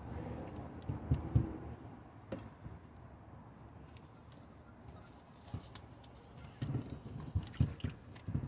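Car battery being shifted and worked out of its well: dull knocks and scrapes of the battery case against the surrounding bracket and trim, with a couple of thuds about a second in and a run of knocks near the end.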